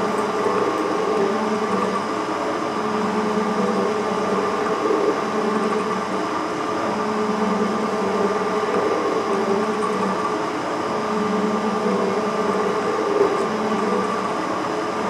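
Metal shaper cutting a vise jaw with a Momax Super Cobalt high-speed-steel cutter. The machine runs steadily, and the ram's cutting stroke and return come round in an even rhythm, about once every second and a half.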